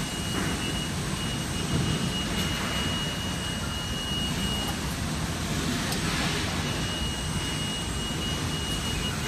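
Steady running noise of an automated assembly line's machinery: a low rumble and hiss with a thin high whine that drops out for about two seconds past the middle.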